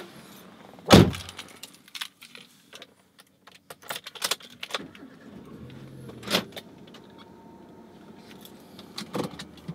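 A car door slamming shut about a second in, followed by keys jangling and small clicks and rustles inside the car's cabin. A faint low hum runs through the second half.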